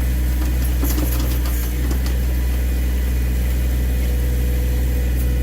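John Deere 1023E compact tractor's three-cylinder diesel engine running steadily while working the backhoe, with a few light clicks in the first two seconds.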